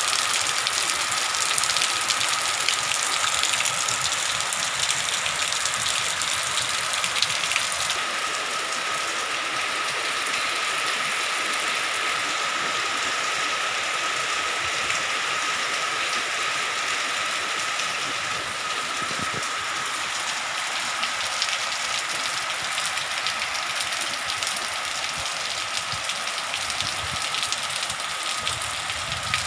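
Heavy rain pouring steadily onto trees, leaves and waterlogged ground, a dense, even hiss of downpour.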